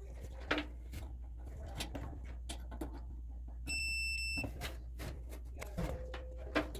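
Amana clothes dryer being tried: a steady low electrical hum, scattered clicks, and one high electronic beep from the control panel a little past the middle. The dryer only clicks and does not start.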